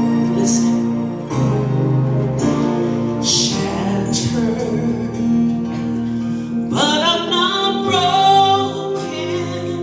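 Music: the intro of a slow inspirational song, with sustained accompaniment chords and a melody line that enters about seven seconds in.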